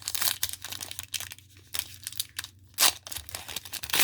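Foil wrapper of a trading-card pack crinkling and being torn open: a run of short irregular crackles, with one loud rip about three seconds in.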